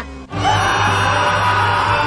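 Music: a long held high note that slides up as it begins about half a second in, over a steady low bass.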